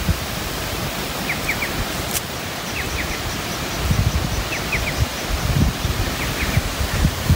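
Outdoor bush ambience: a steady rushing hiss with low rumbling gusts of wind on the microphone, and a bird repeating a short call of three quick falling notes every second or two.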